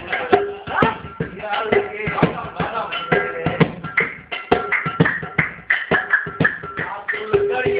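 Men singing a qalandari devotional song with hand-clapping keeping time, sharp claps about twice a second under the held notes of the voice.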